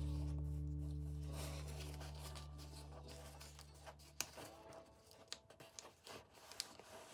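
The last held chord of background music fades away over the first few seconds. Then come faint paper rustles and soft crinkling clicks as a sheet of paper is handled and creased.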